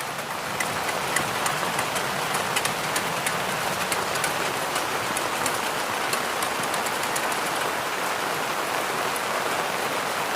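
Steady rain falling: an even hiss with many sharp ticks of drops striking close by.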